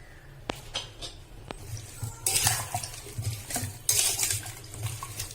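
Raw chunks of elephant foot yam being mixed with turmeric and salt in a metal pot, a spoon scraping and clinking against the pot. There are two sharp clicks in the first second and a half, then bursts of scraping.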